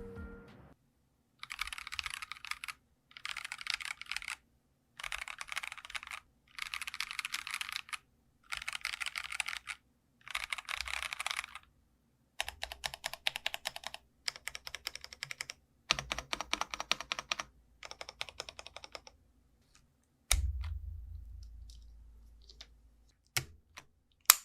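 Typing on a Geekstar JK-series mechanical keyboard, with the light 'dogak-dogak' keystroke sound. It comes first in six short quick bursts, then as a longer run of steady typing. About 20 seconds in a single dull low thump fades out slowly, followed by a few single key presses.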